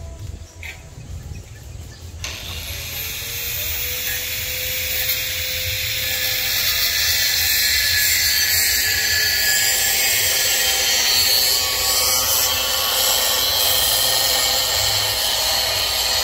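A power tool starts about two seconds in and runs steadily with a loud, hissing noise and a faint tone that rises and then fades.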